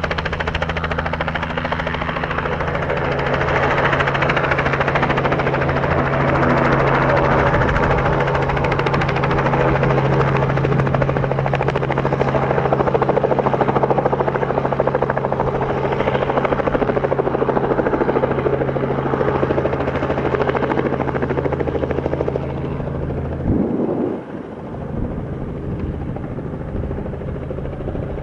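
Robinson R44 Raven II helicopter hovering low, its rotor and six-cylinder Lycoming piston engine making a steady drone with a deep hum underneath. About three-quarters of the way through, the sound drops abruptly to a quieter, thinner drone without the deep hum.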